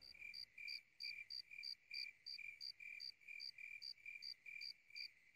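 Faint cricket chirping, a steady pulse of short high chirps about three times a second.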